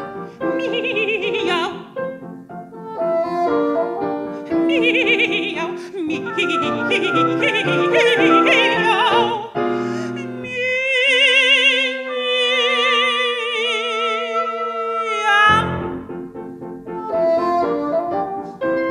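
Classical chamber music: a mezzo-soprano singing with vibrato, accompanied by oboe, bassoon and piano. About ten seconds in, the piano falls silent and the voice holds long, wavering notes over one sustained low note. The full ensemble comes back in for the last few seconds.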